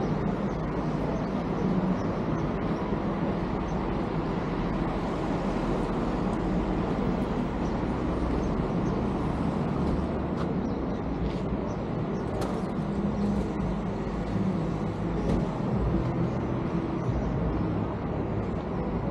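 Steady vehicle noise: a continuous low rumble with a faint engine hum, and a few light clicks about halfway through.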